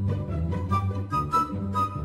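Background music with a steady beat, a bass line and a light melody.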